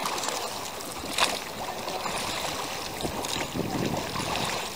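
A small dinghy being rowed: oars pulling through the water, with wind on the microphone and a single sharp knock about a second in.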